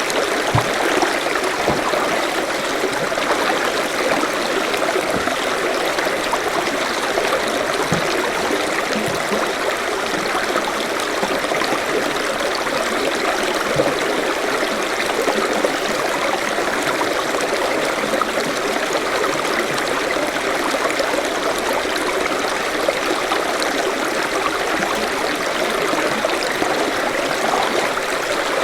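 Forest stream flowing over stones, a steady babbling rush of running water.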